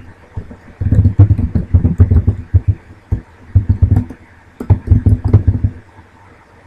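Typing on a computer keyboard: quick runs of keystrokes heard as low thumps with some sharp clicks, in several bursts with short pauses, quieter near the end.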